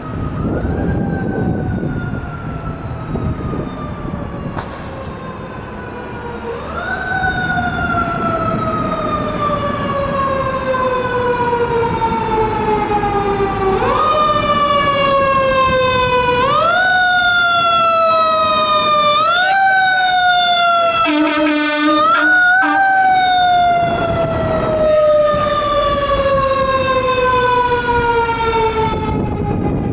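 Fire truck's mechanical siren (Federal Q type) wound up again and again: each time the pitch rises quickly, then slowly falls as the siren coasts down. It grows louder as the truck approaches, and a short burst of horn blasts cuts in a little over two-thirds of the way through.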